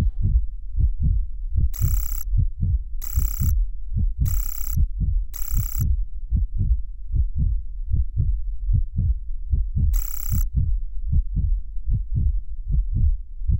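A soundtrack heartbeat effect: low thumps in a steady pulse, about two and a half a second. Six short, bright, bell-like rings are laid over it, four in the first half and two more later.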